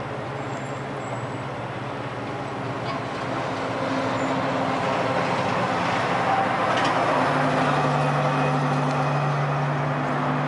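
Heavy diesel truck engine running as a semi-trailer tanker truck drives past, with road noise. It grows louder about a third of the way in, and the engine tone firms up and holds steady in the second half.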